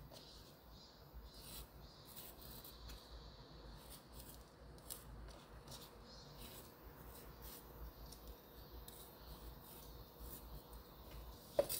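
Faint scraping and light ticks of a chef's knife slitting a red chili pepper and scraping out its seeds on a wooden cutting board, with a sharper knock of the blade on the board near the end.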